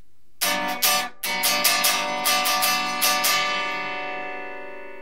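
A Fender Heritage 60s Telecaster Custom solid-body electric guitar strummed unplugged, its bare string sound loud. A dozen or so quick strums follow one another for about three seconds, then the last chord is left to ring and slowly fade.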